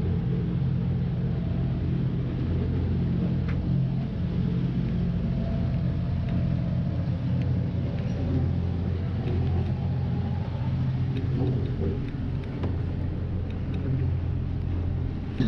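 A sailing yacht's inboard engine running steadily under way, a constant low drone.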